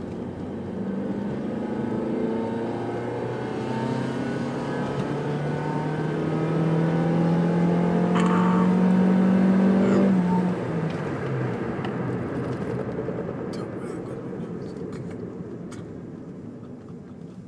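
Mitsubishi Carisma 1.8i's 88 kW four-cylinder engine revving hard under full throttle, its note climbing steadily as the automatic car accelerates. About ten seconds in the throttle closes and the engine note drops and dies away as the car slows.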